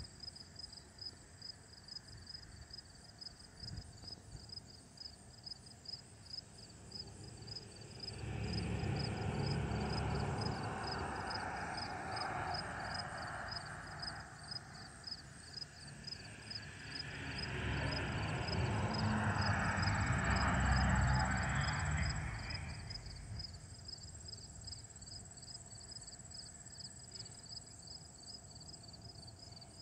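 Insects chirping steadily, about two chirps a second, while a distant rumble swells up and fades away twice, about a third of the way in and again past the middle.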